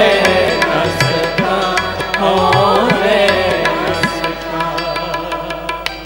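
Gurbani kirtan: a male voice singing a shabad with harmonium and tabla, the tabla strokes keeping a steady rhythm. The sung line is strongest in the first half and the music grows quieter near the end.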